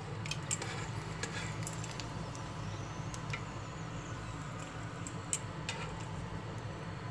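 A few light metallic clicks of tongs against a nonstick frying pan as dried fish is turned in shallow oil. Underneath run a faint frying sizzle and a steady low hum.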